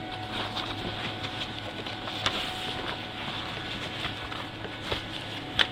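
Steady background hum and hiss with a thin steady high tone, broken by a few faint clicks and rustles and a couple of sharper ticks near the end.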